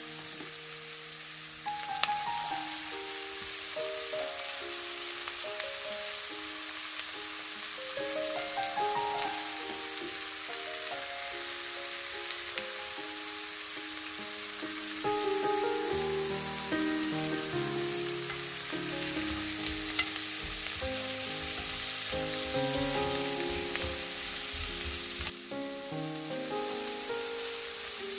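Squid frying in a pan, a steady sizzling hiss throughout, with melodic background music playing under it.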